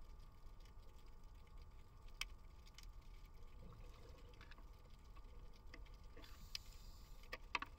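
Faint underwater ambience heard through a sealed camera housing: a low rumble and a faint steady hum, with scattered sharp clicks, a louder one about two seconds in and a few more near the end, and a brief hiss a little after six seconds.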